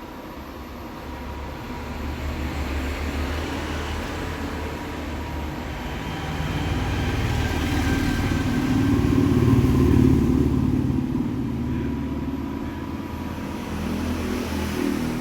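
Robot vacuum cleaner running: a steady motor and brush noise that grows louder to a peak about ten seconds in, then eases off.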